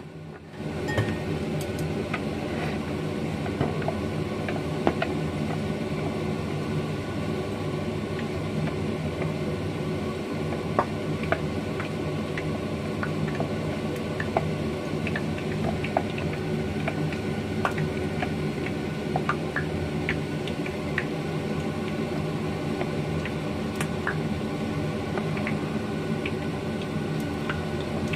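A steady machine hum runs throughout, with small scattered clicks and taps of plastic bowls and plates being handled.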